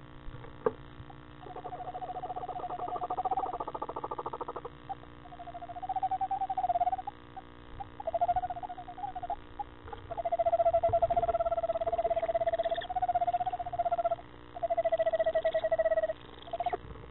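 Barn owl in a nest box giving a series of rapid trilling twitter calls, each one to a few seconds long, with short gaps between them; a single click sounds just before the first call.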